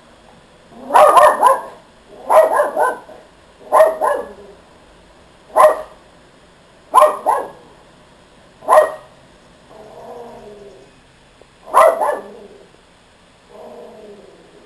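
Small dog barking in short volleys of one to three sharp barks every second or two, with a couple of quieter, lower sounds between the volleys.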